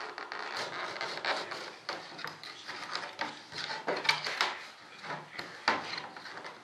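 Hand scraping along the edges of a freshly vacuum-bagged fiberglass flap to clean off cured epoxy: a quick, irregular run of short scratchy strokes, with a couple of sharper clicks about four seconds in and near the end.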